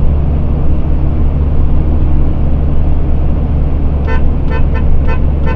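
MAN TGS 33.480 truck's diesel engine running on the road, a steady low drone heard inside the cab. About four seconds in, a quick run of short beeps starts.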